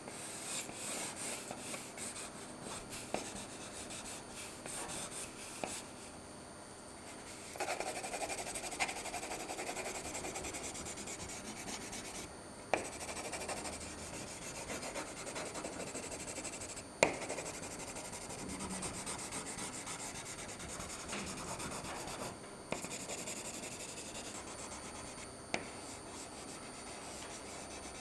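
Charcoal pencil scratching and rubbing across paper on a board in runs of quick strokes, with short pauses between runs and a few sharp knocks.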